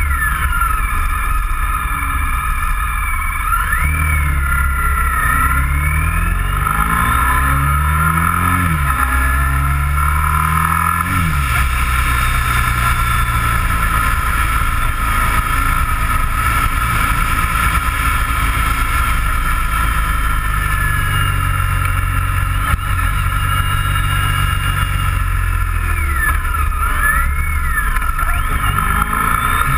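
Motorcycle engine and road noise heard from a bike-mounted camera. The engine note climbs in several rising steps from about four to eleven seconds in as it accelerates through the gears, then runs steadily at cruising speed.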